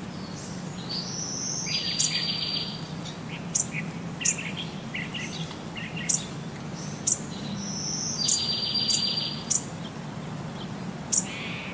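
Bird-like chirps, short whistles and a fast trill, the same phrase coming twice about six seconds apart, over a low steady hum.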